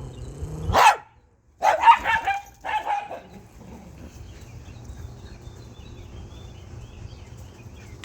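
A dog barking: one sharp bark about a second in, then a quick run of barks and yips in the next two seconds, after which it falls quiet.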